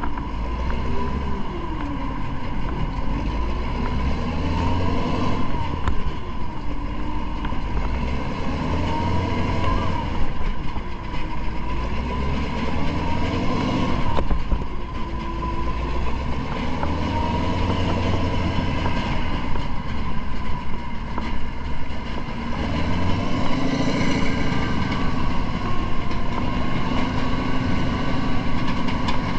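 Heavy engine of an AAV amphibious vehicle running, with a steady low rumble and a pitch that rises and falls again and again as it revs up and down.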